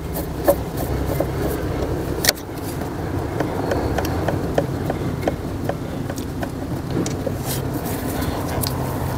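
Small clicks and scrapes of a handheld Torx screwdriver working the screws that hold a Mercedes C-Class SAM fuse box, over a steady low hum.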